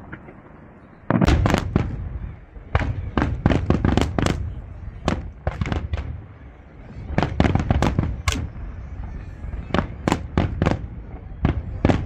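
Fireworks display going off: a quick, irregular string of sharp bangs over a low rumble, starting about a second in.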